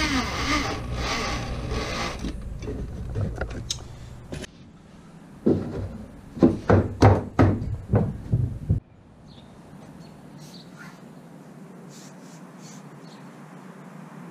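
A cordless drill runs, driving screws into a wooden mast-step block. Then comes a run of loud knocks and thuds as the block is fitted down in the wooden boat's hull, followed by a low, steady background hum.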